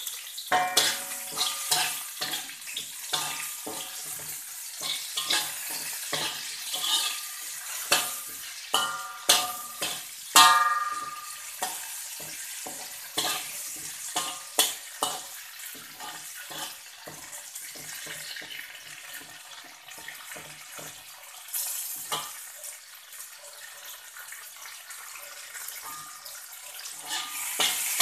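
Garlic, young green chilies and dried anchovies sizzling in hot oil in a wok, with a slotted metal spatula scraping and clinking against the pan as they are stir-fried. The spatula strikes come thick and fast for the first half and thin out later over the steady sizzle.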